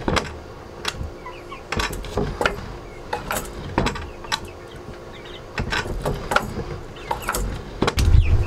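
Plywood guillotine-style chicken coop pop door being pulled up and dropped in its wooden track several times. It makes a string of irregular sharp knocks and clatters as it slides and lands, with its metal hinge latch and washer weights rattling.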